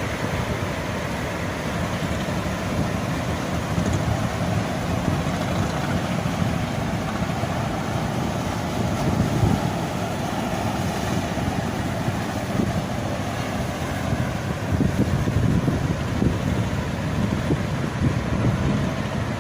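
Strong wind buffeting the microphone over the sea, a rough, gusting rush with no clear engine note.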